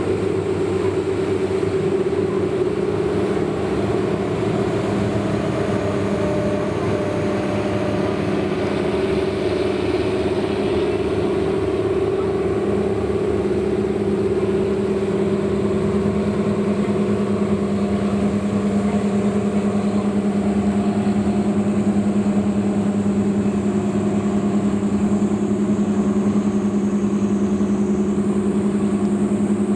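Engine of the small passenger ferry No. 18 Wakato Maru running steadily with an even, low hum. About twelve seconds in, the engine note shifts lower and grows stronger.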